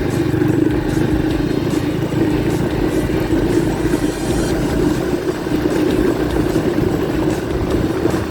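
Honda Pop 110 motorcycle's small single-cylinder four-stroke engine running steadily while being ridden, its camshaft bearing newly replaced and the engine running without the earlier internal noise.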